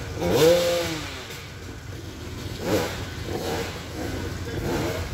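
Side-by-side UTV engine running while the vehicle is stuck in deep mud, revving up twice: a rising rev about half a second in and a shorter rise-and-fall near three seconds in.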